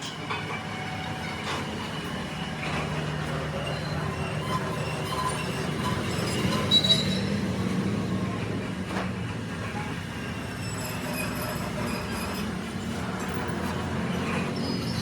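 A metalworking machine running steadily in the drive hub repair, with a low hum and intermittent thin, high-pitched metallic squeals, typical of a cutting tool working the steel.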